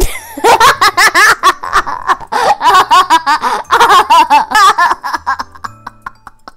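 A young boy laughing hard in a long run of quick, rapid bursts that die away about a second before the end.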